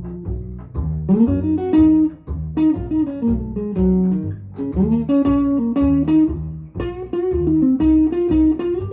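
Guitar playing a blues line: plucked notes, several of them sliding up in pitch, over a pulsing low bass part.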